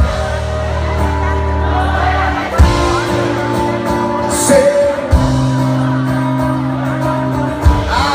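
Live band music with a voice singing, heard from the audience in a large hall. Sustained bass notes change about every two and a half seconds, with a drum hit at each change.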